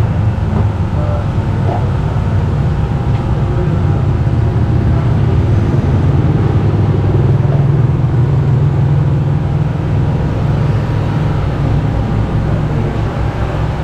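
Steady low rumble of a running motor-vehicle engine, growing a little stronger about halfway through and easing off again.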